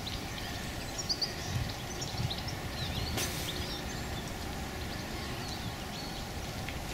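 Pondside ambience: a steady low background rumble with small birds chirping in short, high calls on and off, and one sharp click about three seconds in.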